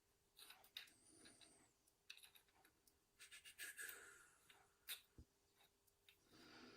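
Faint small clicks and scrapes of lock parts being handled while a Yale euro cylinder is pinned up with a follower, with one sharper click about five seconds in.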